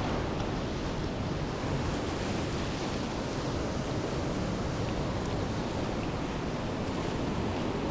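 Steady ocean surf washing, an even hiss that doesn't rise or break.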